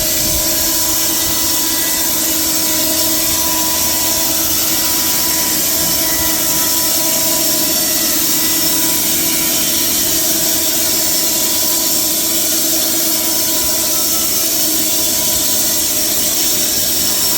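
AMIX PT 85 stationary band sawmill running steadily, its band blade sawing through a log with a constant whine over a strong hiss.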